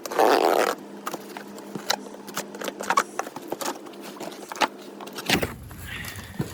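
Metal engine parts and hand tools clinking and clicking as they are handled during a motor teardown, with a short loud rustle at the start.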